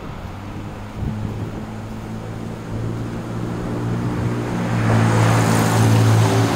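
Engine and tyre noise from a car driving through a road tunnel, growing steadily louder, with a rush of passing-vehicle noise over the last second or two as an oncoming vehicle goes by.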